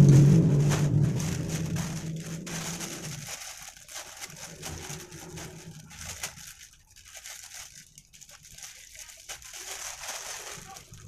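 A passing motor vehicle's engine hum, loudest at the start and fading out about three seconds in. After it comes soft, intermittent crinkling of a plastic bag as hands handle jackfruit rind and a knife.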